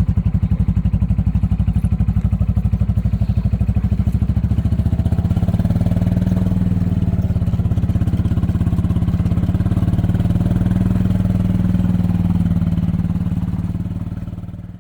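Golf cart engine running with an even, rapid putter, then dying away just before the end.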